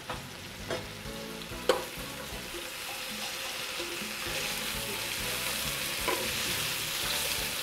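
Julienned bell peppers, red onion and chicken sizzling in hot oil in a frying pan as they are stirred, the sizzle slowly growing louder, with a few sharp clicks of the utensil against the pan.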